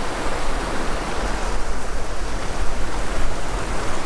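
Steady rush of flowing water from a mountain river or cascade, a loud, even noise with no breaks.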